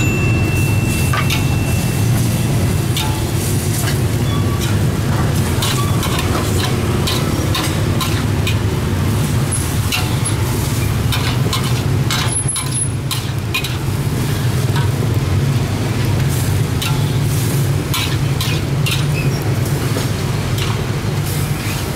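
A metal wok ladle clatters and scrapes against a steel wok as vegetables are stir-fried and sizzle, in quick irregular clicks. Under it runs a steady low rumble.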